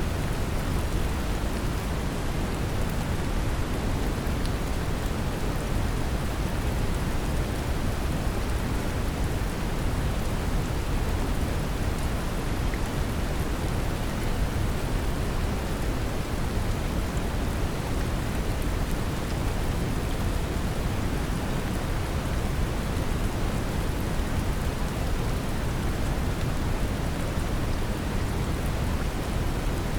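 Steady brown noise, heaviest in the low end, mixed with gentle rain and a few light drop ticks; a constant, unchanging wash.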